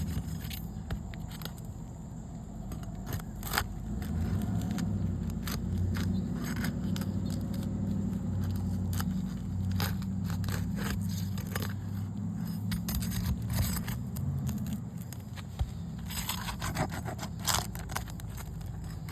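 Sealed asphalt roof shingle being pried up by hand and tearing, with scattered scrapes and crackles as it rips. The shingle is stuck down so firmly that it tears instead of lifting. A low steady hum runs underneath, and the crackling gets denser near the end.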